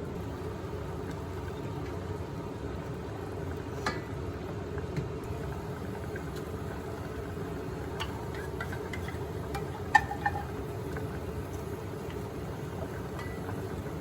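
Steady low kitchen noise, like a running fan or appliance, with a few light clinks and taps of cookware. The sharpest clink comes about ten seconds in.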